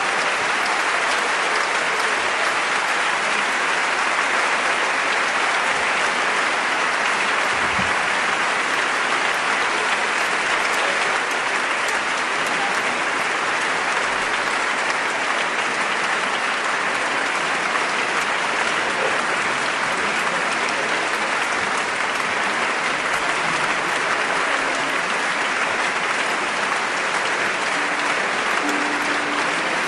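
Concert audience applauding steadily, a dense even clapping that neither builds nor fades.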